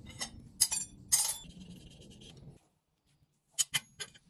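Steel stock clinking against an anvil: a few sharp metallic clinks with a short ring in the first second and a half, then three more near the end.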